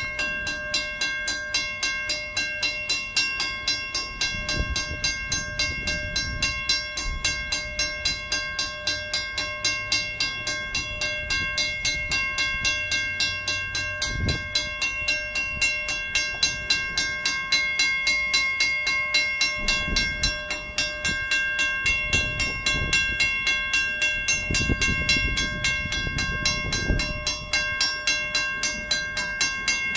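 WCH mechanical railroad crossing bell ringing on, a rapid, even run of metallic strokes. Slow-rolling freight cars add low rumbles and knocks from their wheels at intervals, heaviest near the end.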